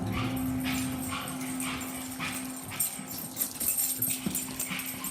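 Dog whimpering restlessly, in short sounds repeating every half second or so, over a steady low hum.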